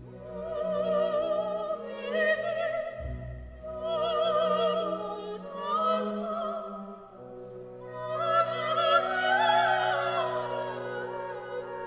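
Music: an operatic voice singing with heavy vibrato over an orchestral accompaniment, in three long phrases.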